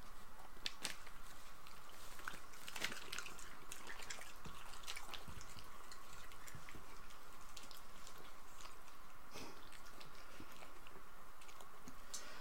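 Shiba Inu dogs chewing pieces of ribeye steak: irregular wet clicks and crunches of biting and mouthing meat.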